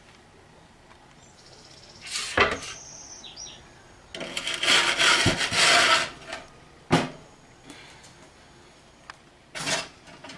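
Kitchen handling sounds as a baked loaf is checked in the oven: a few knocks and clatters, with a longer rustling scrape in the middle and a sharp click just after it.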